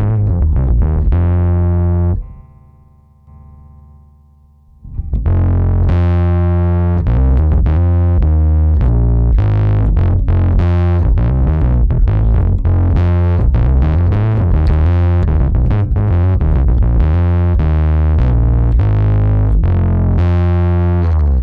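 Electric bass played through distortion effects on a Zoom B6 bass multi-effects processor: a riff of short, heavily distorted notes. About two seconds in it drops to a quieter held sound, then about five seconds in a brighter, more distorted tone takes up the riff and stops abruptly near the end.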